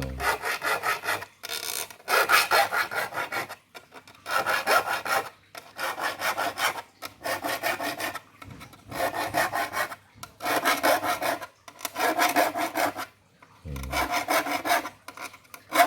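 Hand file rasping across the teeth of a wood handsaw to sharpen it: about ten even strokes, each roughly a second long with short pauses between, all filed in one direction.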